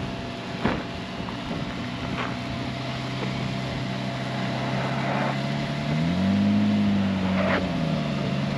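Honda Ridgeline's 3.5-litre V6 engine running at low revs as the truck crawls onto a rocky off-road climb, revving up about six seconds in and then settling back. A short knock sounds about a second in.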